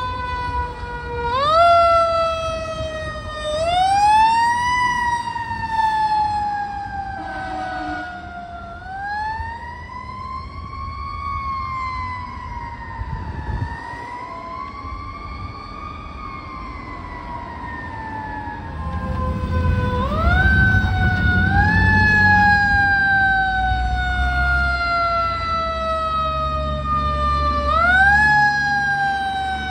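Fire truck sirens wailing: repeated quick rises in pitch, each followed by a slow falling glide, with a slower rise-and-fall wail in the middle. A heavy engine rumbles under the siren in the last third.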